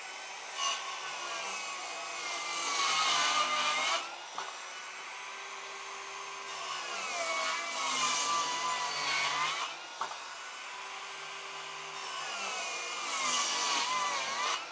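Bosch GKS 185-Li brushless cordless circular saw with a Standard for Wood blade making three crosscuts through a thick plank with a knot. Each cut is a loud stretch of a few seconds, with the motor pitch sagging slightly near its end, and between cuts the saw runs freely and more quietly. The blade gets through the knots without bogging down.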